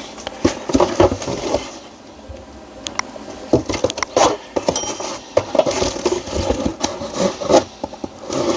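Packaging being handled and opened by hand: a run of irregular rustles, scrapes, taps and clicks.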